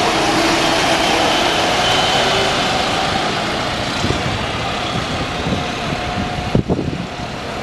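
Wright-bodied double-decker bus driving past close by and pulling away, its engine running over steady city traffic noise that eases slightly as it goes. A couple of short knocks come near the end.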